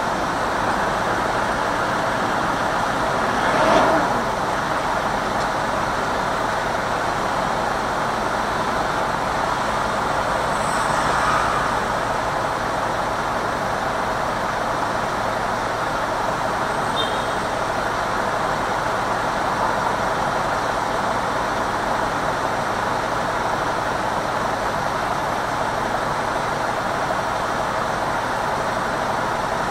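City traffic and road noise heard from inside a car driving slowly: a steady hum of engines and tyres, with a brief louder swell about four seconds in.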